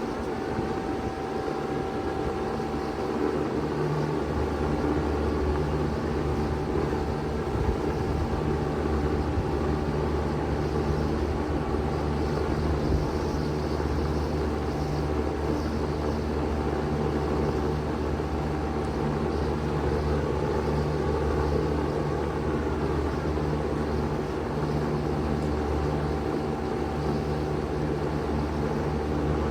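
Bard 3-ton wall-hung heat pump running in cooling mode: a steady fan rush with a low hum and a faint steady tone. The low hum grows stronger about four to six seconds in, then holds steady.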